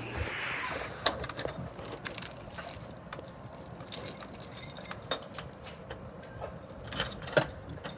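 A scatter of irregular light clicks and metallic clinks, with a brief hiss in the first second.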